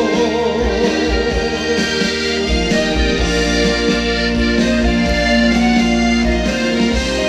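Instrumental ending of a trot song played through a concert PA: a wavering lead melody in the first two seconds, then sustained notes over a pulsing bass beat.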